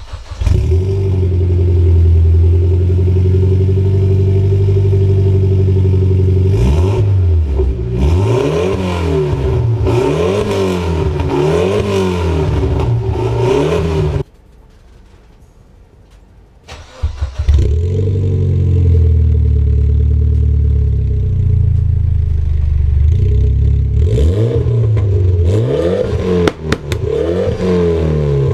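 Mitsubishi Lancer Evolution X's turbocharged four-cylinder, breathing through an HKS Hi-Power 409 exhaust, starting from cold at −1 °C and settling into a steady idle, then revved in about five quick blips. About halfway the sound drops away for a few seconds, then the engine starts again, idles, and is blipped several more times near the end.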